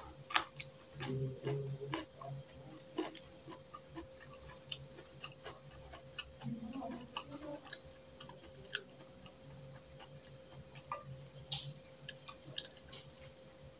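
Close-up eating sounds: chewing with soft irregular clicks and smacks of the mouth and fingers as rice and leaves are eaten by hand. Behind them runs a steady high-pitched chirring of crickets.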